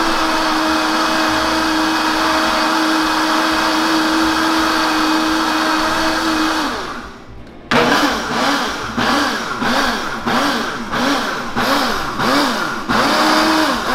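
Countertop blender motor on its pulse setting, whipping cream into chantilly. It runs at a steady pitch for about seven seconds and stops briefly. Then it runs again with its pitch wavering up and down about twice a second.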